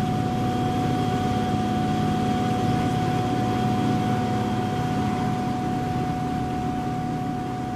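Steady running noise heard from inside a moving electric train: a low rumble with a constant whine held at one pitch, fading slightly near the end.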